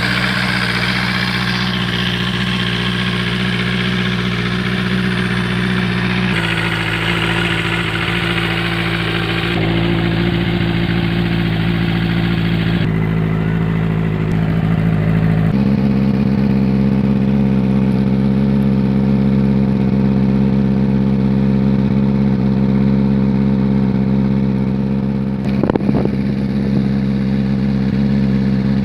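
Benelli 600i inline four-cylinder motorcycle engine and exhaust, held at steady engine speeds that shift a few times, with a brief blip of revs near the end.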